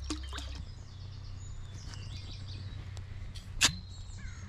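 Small birds singing, many short chirps and trills overlapping, over a low steady rumble; a single sharp click about three and a half seconds in.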